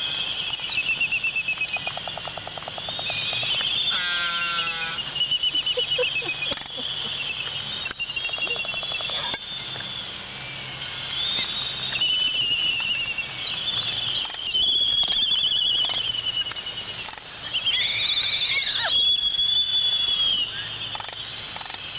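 Laysan albatrosses calling during a courtship dance: repeated high squealing whistles and rattling whinny-like calls, with short bill clacks in between.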